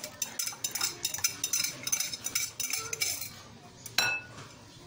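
Spoon beating yogurt in a cut-glass bowl: quick, irregular clicks and clinks of the spoon against the glass, with a louder ringing clink about four seconds in.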